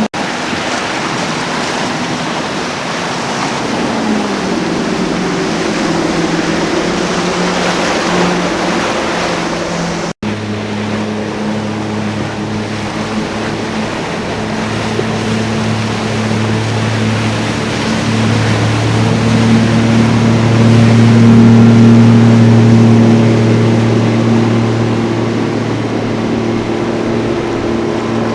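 Motorboat engines running, a steady low drone over the splash and rush of waves and wake. The engine pitch drops about four seconds in, the sound cuts off abruptly at an edit about ten seconds in, and a second boat's engine grows louder and then fades again after the edit.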